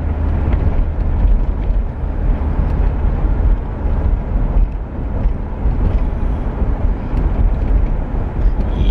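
A 1984 Pontiac Parisienne station wagon driving along the road: a steady low rumble of engine, tyres and wind noise.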